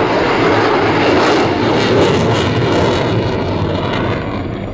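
F-16 Fighting Falcon fighter jet in flight, its jet engine noise loud and steady, then fading near the end as the jet draws away.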